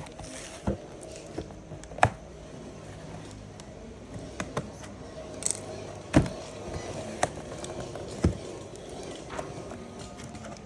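Irregular knocks and clicks of an object being handled, about eight over ten seconds, with the sharpest about two and six seconds in, over a steady background noise.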